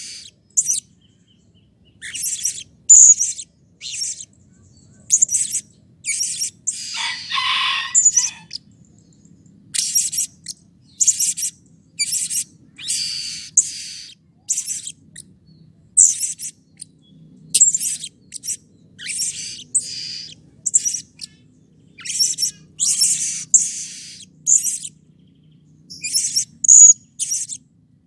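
Blue-crowned hanging parrot (serindit) calling repeatedly: short, very high, shrill chirps in quick runs separated by brief pauses, with one longer, lower and rougher call about seven seconds in.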